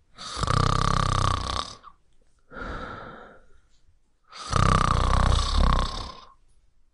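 A person snoring: two loud snores about two seconds long, with a quieter, shorter breath between them.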